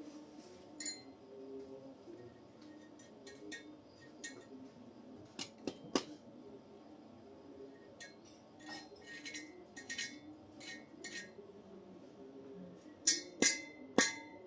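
Metal pieces clinking and tapping together at irregular intervals, several strikes leaving a short metallic ring, with three sharper, louder knocks near the end.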